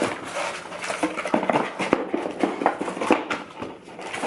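Cardboard packaging being handled: irregular rustling, scraping and light knocks as the box's contents are lifted out and the box is closed.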